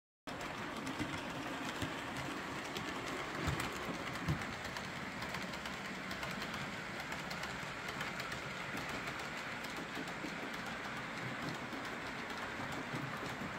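OO gauge model trains running on the layout: a steady rumble of wheels on track with many small clicks, and two louder clicks about three and a half and four and a half seconds in. The sound starts suddenly just after the title card.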